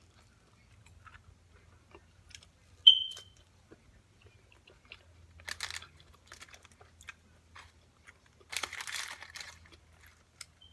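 Close-miked eating: chewing and crunching of fried food, with scattered small mouth clicks and a couple of louder crunchy stretches in the second half. A short, sharp ping sounds about three seconds in.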